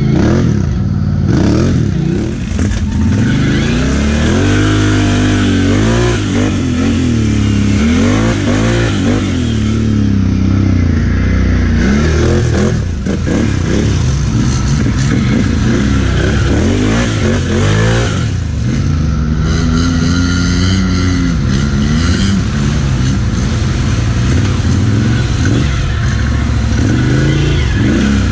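ATV engine revving up and down over and over, its pitch rising and falling every second or two.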